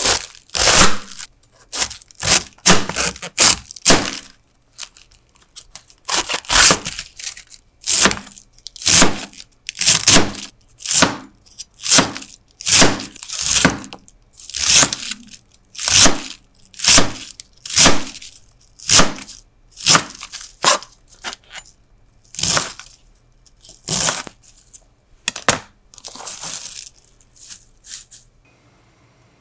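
Kitchen knife cutting a head of green cabbage into pieces on a plastic cutting board: crisp, crunching slicing strokes, about one a second, that stop near the end.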